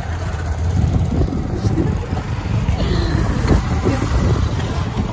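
Wind buffeting the microphone and road noise on a moving two-wheeler, a steady low rumble.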